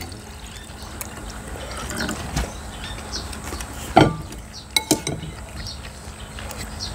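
Water poured from a plastic bottle into a drinking glass, the glass filling. After that come a few sharp clinks of spoons against ceramic bowls, the loudest about four seconds in.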